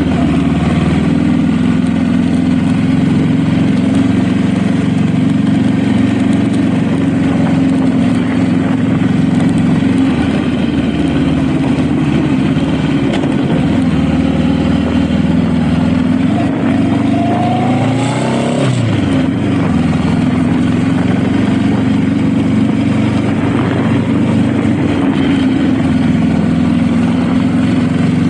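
Honda Rebel motorcycle engine running steadily while riding. About two-thirds of the way through, its pitch rises as it revs up, then drops off sharply.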